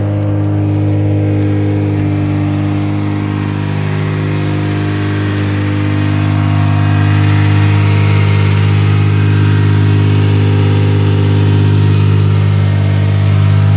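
Vehicle engine idling steadily as it warms up after a cold start, its first run in months, on a freshly installed radiator. The idle gets a little louder about halfway through.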